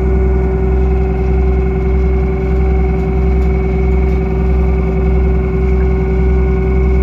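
The boat's engine running steadily: a constant low drone with a steady hum over it, unchanging in pitch and loudness.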